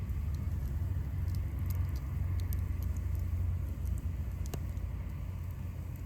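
Campfire crackling: scattered sharp pops and ticks of burning wood, a cluster in the first half and a louder pop about four and a half seconds in, over a steady low rumble.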